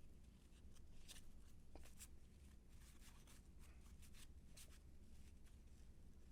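Faint, brief flicks and rustles of cardboard baseball cards being slid off a stack and flipped by hand, a dozen or so at irregular moments, over a low steady hum.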